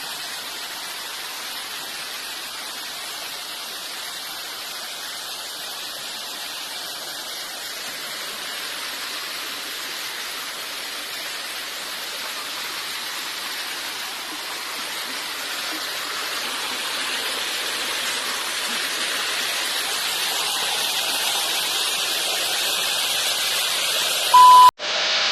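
Steady rushing of a waterfall that slowly grows louder. Near the end it is cut off by a short, loud electronic beep.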